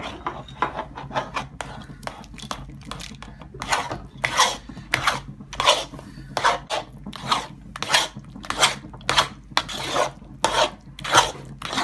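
A spatula scraping and stirring very thick, sticky black halwa around a metal wok, in repeated strokes about twice a second that grow louder after the first few seconds. The halwa is an hour into cooking and has become stiff and hard to stir.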